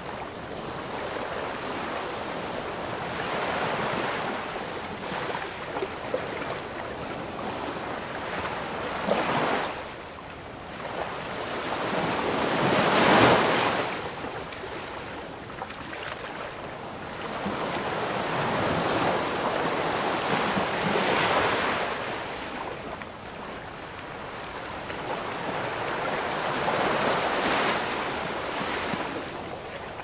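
Ocean waves breaking and washing up, rising and falling in slow surges several seconds apart, the loudest crash about halfway through.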